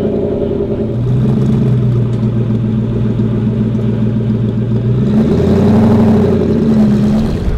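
McLaren P1's twin-turbo V8 idling steadily. About five seconds in, its note rises a little and gets louder, then eases near the end.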